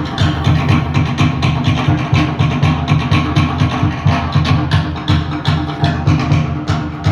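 Pacific Island dance music: a fast, even drum beat over plucked strings and a steady bass line.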